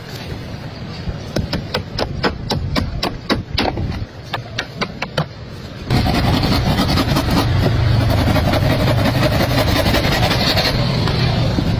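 Hammer blows on wood, several a second, for the first half; then a steady engine drone cuts in suddenly about halfway through and takes over.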